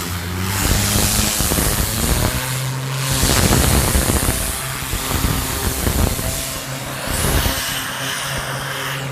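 A 4000 PSI, 8-gallon-per-minute engine-driven pressure washer runs steadily while its water jet hisses against the deck boards during the rinse. The spray noise rises and falls several times.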